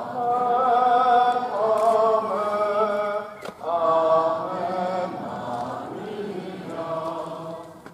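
A crowd singing a slow hymn in unison, in long held phrases with short pauses for breath.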